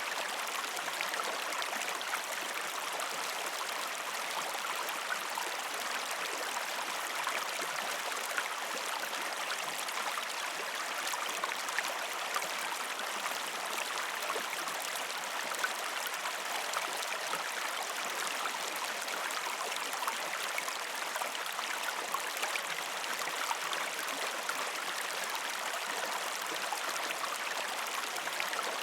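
River stream flowing over rocks: a steady rushing of water with many small splashes and little low rumble.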